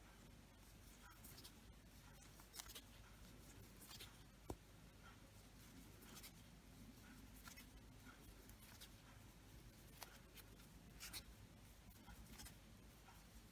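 Near silence with faint, irregular light clicks and scratches, about one a second, from a crochet hook working single crochet stitches in yarn.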